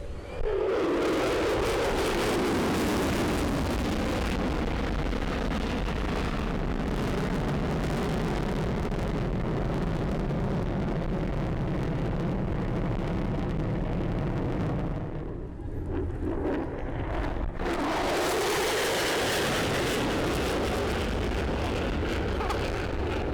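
Lockheed Martin F-35A's afterburning turbofan jet engine running at high power in a low fly-past, with a sweeping, whooshing change in tone as it passes. The sound eases off briefly around 15 seconds in, then swells loud again as the jet comes back by.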